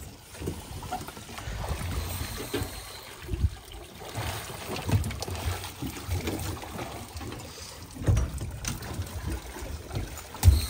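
Seawater splashing and dripping off a scuba diver and his gear as he climbs a dive-boat ladder out of the sea, with scattered low thumps, the loudest near the end.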